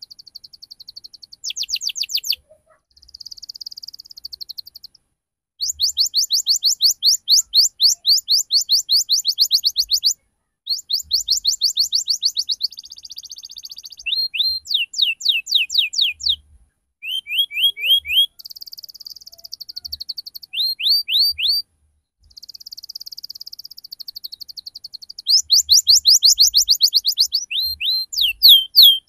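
Domestic canary singing: fast trills of high notes, each sweeping downward, several a second, alternating with buzzy rattling phrases and short pauses.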